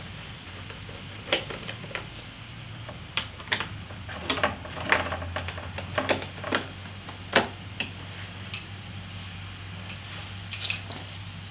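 Screwdriver clicking and small metal screws and parts clinking at irregular moments as cross-head screws are undone under a motorcycle's rear tail section, over a low steady hum.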